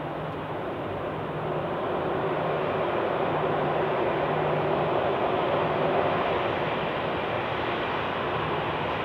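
Jet engine noise from an Airbus A330-300's Rolls-Royce Trent 700 engines, heard from a distance as it lands. It is a steady rushing noise that grows a little louder over the first few seconds and then holds.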